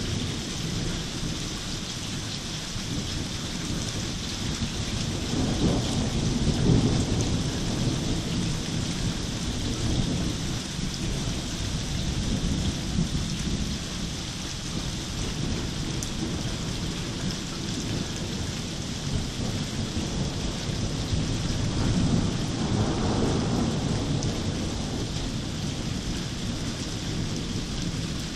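Steady heavy rain falling, with thunder rolling low and long twice: one rumble swells about five to eight seconds in, the loudest moment, and another about twenty-two to twenty-four seconds in.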